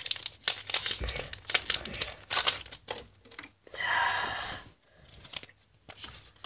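Foil wrapper of a Pokémon trading-card booster pack being torn open and crinkled by hand: dense crackling rustles and tearing for the first three seconds, then quieter, sparser handling.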